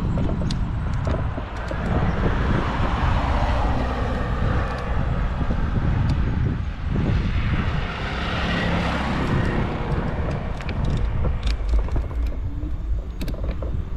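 Outdoor road and wind noise: a steady low rumble with a hiss that swells twice, a few seconds apart, and a few sharp ticks near the end.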